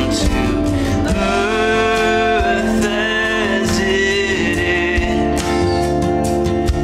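A contemporary worship song: a voice singing a slow melody over steady instrumental accompaniment.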